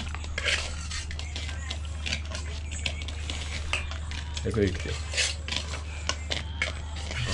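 Metal ladle scraping and clinking against a steel kadhai as it stirs and scoops thick chicken curry. The knocks are irregular and come over a steady low hum.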